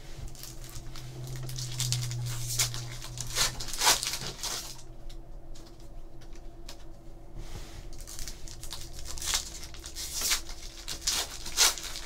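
Foil wrappers of Topps Chrome trading-card packs crinkling and tearing open, with cards sliding against each other in the hands. It comes as a series of short rustles.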